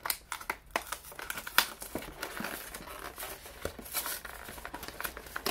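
Crinkling and tearing of a Pokémon card box's packaging as it is worked open by hand: a run of crackles and clicks with a sharp snap about a second and a half in. The box is stubborn and does not open easily.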